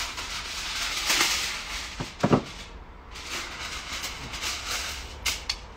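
Aluminium foil crinkling and rustling in uneven bursts as a sheet is torn off the roll and handled, with a short knock a little over two seconds in and a sharp click near the end.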